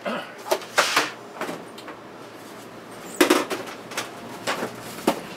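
Handling noises: a series of knocks and scrapes as plastic boomboxes and a cardboard boombox box are moved and picked up, the loudest just under a second in and about three seconds in.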